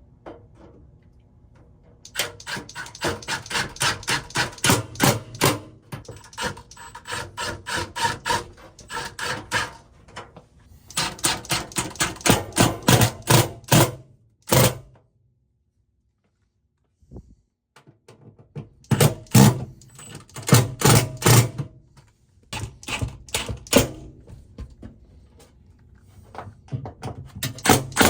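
Power driver running in bursts of rapid clattering a few seconds long, driving screws to fasten a fire alarm panel cabinet to the wall. There is a silent gap partway through.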